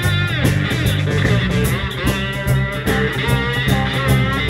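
Live blues-rock band playing: an electric guitar solo with gliding, sliding notes over bass guitar and a steady drum beat.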